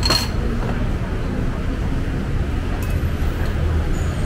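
City street traffic: a steady low rumble of passing vehicles, with a sharp clink right at the start and a faint click about three seconds in.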